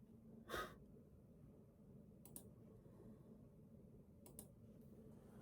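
Near silence with a short rustle about half a second in, then two pairs of faint clicks, one about two seconds in and another about four seconds in.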